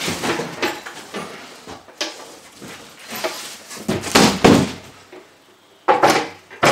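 Cardboard box rustling and scraping as a benchtop bandsaw is pulled out of it and lifted, then sharp knocks near the end as the saw's steel base is set down on a wooden workbench.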